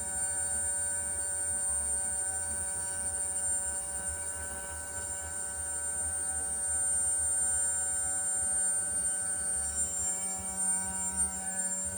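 Home-built CNC milling machine running: a steady, high-pitched whine with several steady lower tones beneath it, which shift a little near the end.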